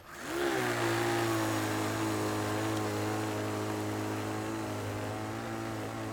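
Motor of a prototype radio-controlled single-stage snow blower starting up suddenly, climbing in pitch over about half a second, then running at a steady pitch while the machine drives through fresh snow.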